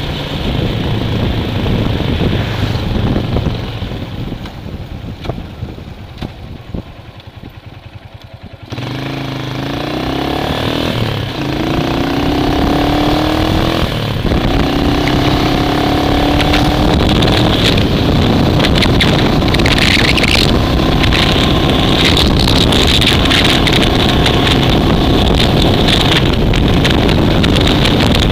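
Vehicle engine pulling away and accelerating, its pitch rising several times over in steps like gear changes, then a loud rushing wind noise over the microphone as speed builds.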